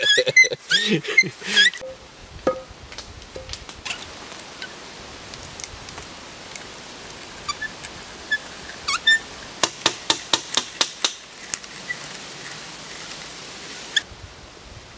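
Hand brace turning an auger bit to bore into a wooden pole: a faint steady scraping of the bit in the wood, with scattered sharp clicks and creaks that come in a quick run about ten seconds in.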